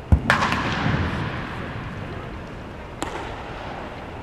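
A sharp crack of a baseball bat hitting a ball, with a dull thump just before it and a long echo under a domed stadium roof, then a fainter second crack about three seconds in.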